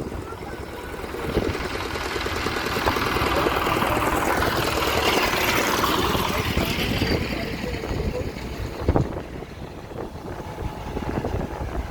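Road traffic noise under a steady low rumble: a vehicle passing close, its rush swelling over a few seconds and falling in pitch as it fades.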